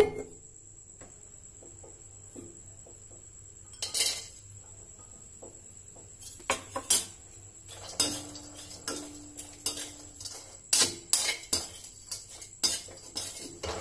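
A metal slotted spoon scraping and clanking against an aluminium kadhai as coconut slices are stirred in a little oil, with a clatter about four seconds in as the slices go into the pan. The clanks come thick and irregular through the second half.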